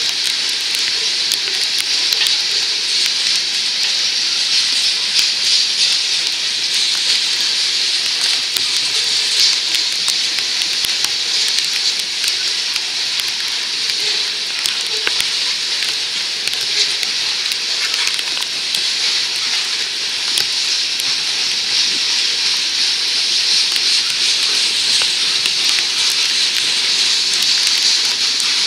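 Steady hiss of falling rain, mixed with the rolling of a passing freight train's covered hopper cars, wheels running over the rails, with many small scattered clicks throughout.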